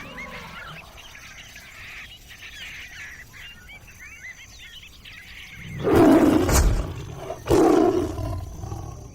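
Outdoor ambience with birds chirping, then two loud roars from a big cat, the first about six seconds in and the second about a second and a half later.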